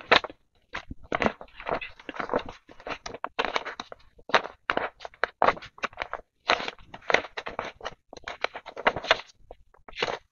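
Paper US dollar bills handled and flipped through as they are counted by hand: a run of short, irregular crisp rustles and crackles.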